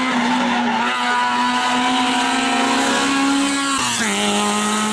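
Hatchback race car's engine at high revs going by at full throttle, its note rising slightly, then dropping sharply just before four seconds in as it shifts up a gear and pulls on.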